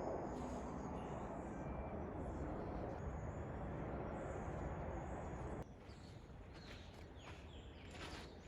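A steady rushing background noise that stops abruptly about two-thirds of the way in; after it, a quieter outdoor background with birds calling in short falling whistles.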